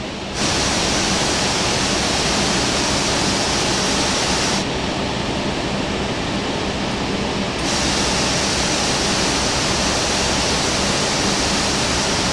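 Steady cockpit noise of an Airbus A380 taxiing, with a low hum under it. A loud hiss switches on about half a second in, cuts out at about four and a half seconds, and comes back at about seven and a half seconds.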